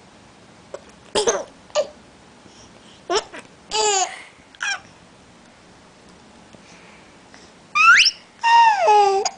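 A baby with the hiccups making short high-pitched squeals and babbling sounds, then a quick rising squeal and a longer falling one near the end.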